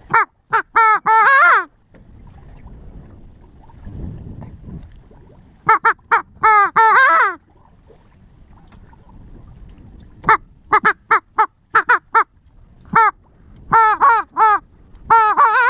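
Oldsquaw (long-tailed duck) call blown to imitate a long-tailed duck: four loud runs of short, quick notes that bend up and down in pitch, a few seconds apart, calling sea ducks in to the decoys.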